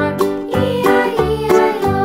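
Children's background music with a steady beat.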